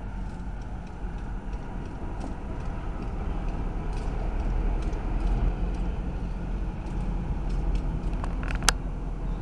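Union Pacific diesel switcher locomotive's engine running with a steady low rumble as it moves away down the track. Faint scattered clicks, and one sharp click near the end.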